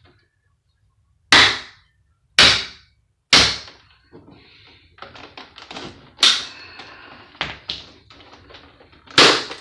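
Hammer striking a screwdriver wedged into a PlayStation 3's plastic casing to break it open: three sharp blows about a second apart, then smaller clicks and rattles of the prised plastic and more sharp knocks, one loud one near the end.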